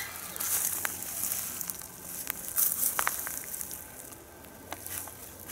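Quiet outdoor garden ambience: a steady high hiss with scattered small clicks and rustles, as of handling and steps on straw mulch.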